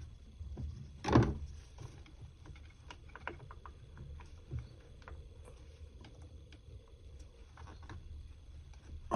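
Small plastic clicks and knocks of ignition coil electrical connectors being worked loose by hand, with one sharp, louder clack about a second in, over a low background hum.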